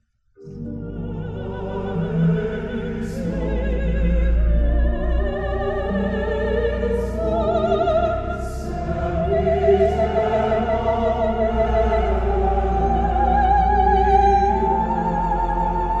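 Wharfedale EVO 4.2 stand-mounted hi-fi speakers playing classical vocal music, an operatic voice with wide vibrato over sustained accompaniment and a deep bass line. The music starts about half a second in, after a brief silence.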